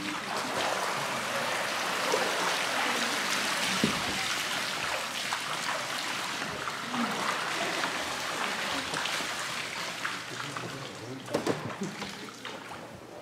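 Audience applause, a steady patter of many hands, dying away over the last few seconds.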